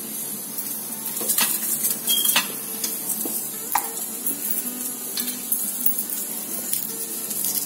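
Hot oil sizzling around mustard seeds, cumin, chana dal and urad dal in a nonstick pan as a tempering begins to fry, with several sharp ticks through it.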